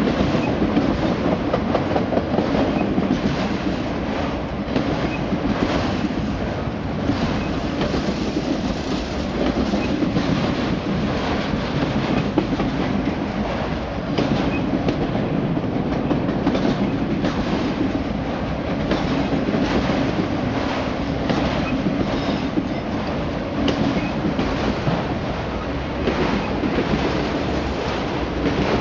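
Freight train of autorack cars rolling past close by: a steady rumble of steel wheels on rail, with repeated clacks as the wheels cross the rail joints.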